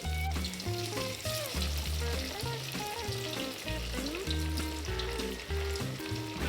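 Batter-coated tofu lumps deep-frying in hot oil, a steady sizzle with fine crackles, under louder background music with a bass line and melody.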